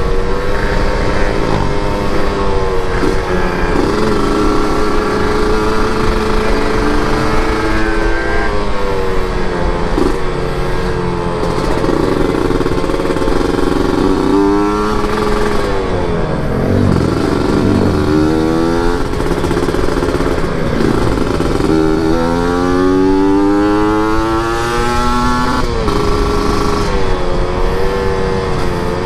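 Motorcycle engine heard from the rider's seat while riding, its pitch rising and falling with throttle and gear changes, including a long rising rev about two-thirds of the way through, with wind rush throughout.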